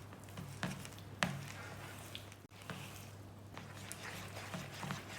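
Gram-flour batter being stirred with a spoon in a bowl, with scattered short clicks and knocks of the utensil against the bowl, over a steady low hum.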